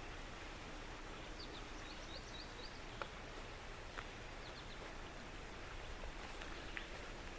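Outdoor ambience: a steady background hiss with a small bird giving a quick series of short high chirps about a second and a half in, and a few more around four seconds. A few faint clicks come through as well.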